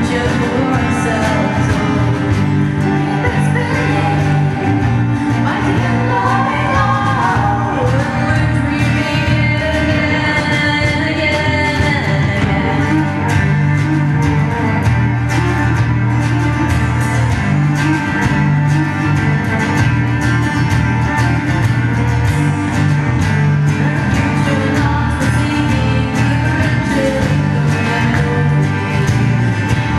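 Live band music: a woman singing over acoustic guitar, cello, electric bass and drums, the full band playing steadily throughout.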